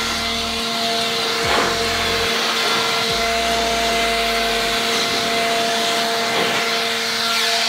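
Leaf blower running steadily at full speed, a constant motor whine over the rush of air, blowing water off a wet engine bay.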